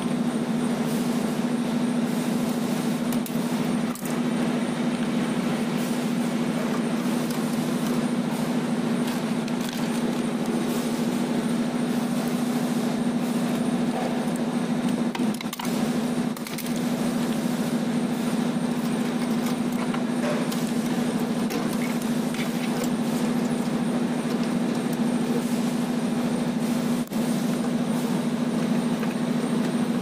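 Steady low drone with a hiss over it, dipping briefly a few times.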